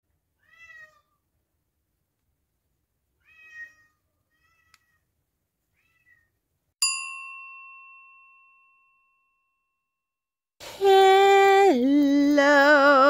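Several short, faint cat meows, then a single bell-like ding about halfway through that rings out for about two seconds. Near the end a loud, long held voice-like note starts, dropping once in pitch and then wavering.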